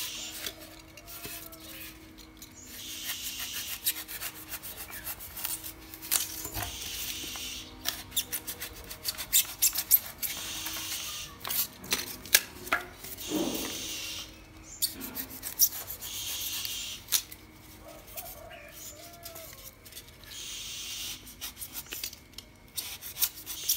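Utility knife blade sawing through polystyrene foam: repeated rasping strokes, each a second or two long, with many sharp clicks and crackles between them.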